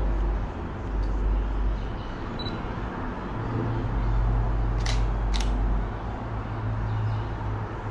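DSLR camera shutter clicking twice, about half a second apart, over a steady low rumble.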